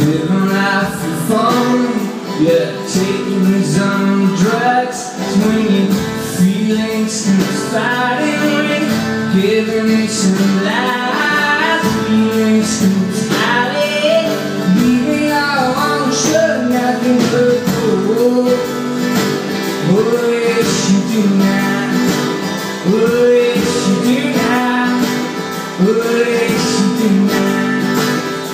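A man singing while strumming an acoustic guitar, played live as a solo song.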